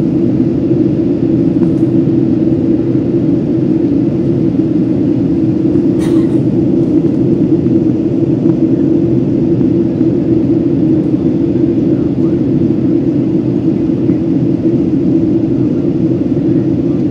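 Steady in-cabin drone of a Boeing 737-700 in flight: its CFM56-7B engines and the rush of air over the fuselage heard as an even rumble. There is a single brief click about six seconds in.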